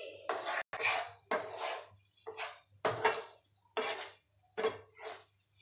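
Wooden spatula stirring and scraping thick wheat-flour halwa (aate ka halwa) around a non-stick pan in about eight quick strokes, less than a second apart. The halwa is at the stage just after the water and sugar are mixed in, when it starts to gather into one mass.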